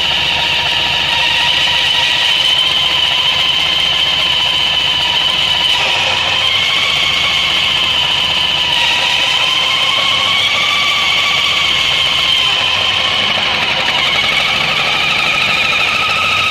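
Unexplained whistle from the Suzuki Burgman 650's CVT variator, with the pulley sheaves drawn together and the secondary shaft turning, over the engine running. The whistle is two steady high tones that drift slightly up and down in pitch.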